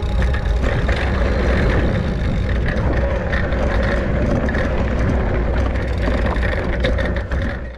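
Riding noise from a fat-tyre electric mountain bike on a dirt trail: a steady low rumble of wind buffeting the microphone, with the tyres rolling and clicking over dirt and small rocks. It cuts off suddenly at the end.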